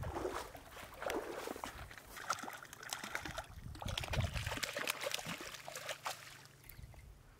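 A hooked brown trout splashing and thrashing at the surface as it is brought in and scooped into a landing net: irregular splashes and sloshing water, dying away near the end.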